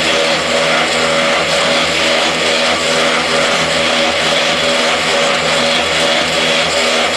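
QMY6-25 mobile hydraulic paving block making machine running, its motors and hydraulic drive giving a loud, steady mechanical hum that holds level throughout.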